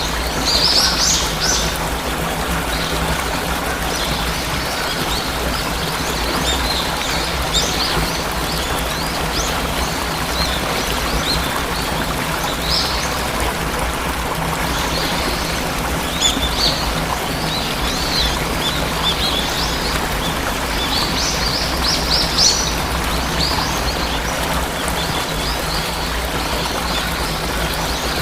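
Steady rush of falling water from a waterfall, with songbirds chirping over it in short, high clusters, busiest about a second in and again about two-thirds of the way through.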